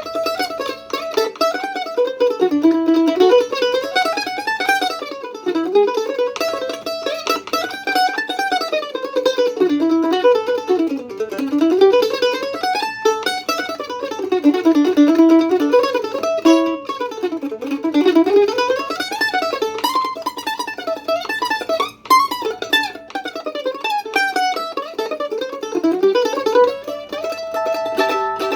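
Craig Wilson WA-5 F-style mandolin played solo, still on its original strings: fast picked runs that climb and fall over and over, with rapid repeated picking throughout.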